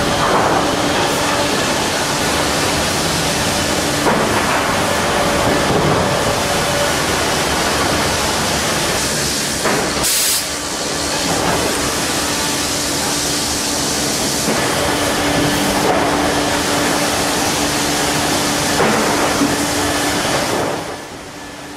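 Sawmill profiling line running: a squared log cant moving on a powered roller conveyor while rotating cutter heads mill its sides. There is steady machine noise with a constant hum, and a short hiss and break about ten seconds in.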